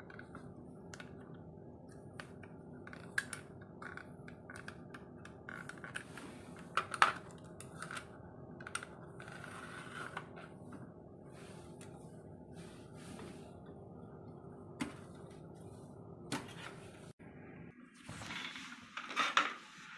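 Scattered small plastic and metal clicks, knocks and scrapes of SATA data and power cable connectors being handled and plugged into a drive inside a desktop PC case, over a steady low hum, with some rustling near the end.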